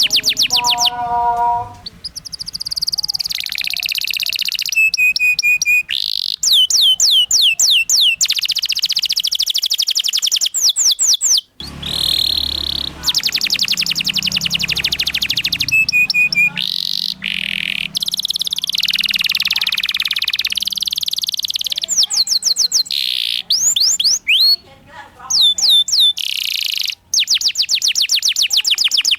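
Domestic canary singing a long rolling song: fast runs of identical down-slurred notes and trills, one phrase after another with short breaks between them.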